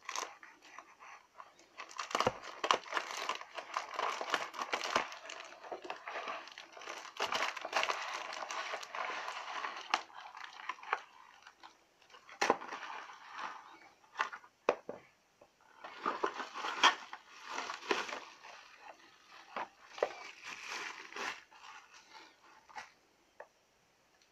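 Plastic packaging bag crinkling and rustling as it is handled and opened, followed by a cardboard box being handled, with scattered clicks and shorter bursts of rustling.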